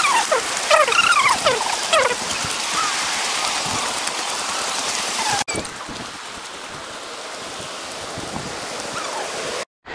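River water rushing over rocks, a steady hiss, with a few short falling chirps in the first two seconds. About halfway through it cuts abruptly to a slightly quieter stretch of the same rushing water.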